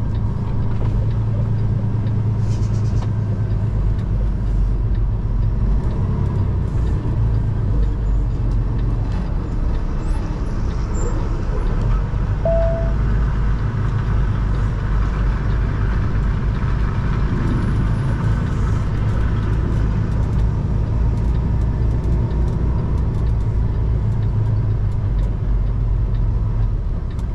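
Semi truck's diesel engine idling steadily, a low even rumble.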